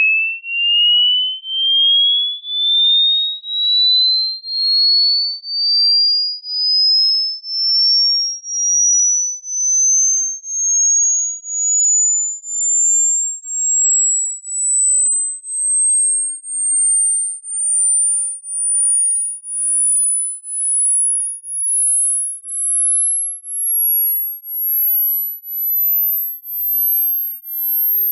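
Hearing-test sine-wave sweep: a single pure electronic tone glides slowly and steadily upward from a high whistle to a very high, thin pitch, pulsing in loudness about once a second. It is a frequency sweep for finding the highest pitch the listener can still hear.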